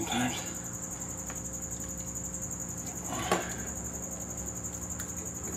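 A steady high-pitched tone runs throughout, with faint handling sounds and a brief knock about midway as a piston ring compressor is squeezed around a piston at a Ford 302 V8 block.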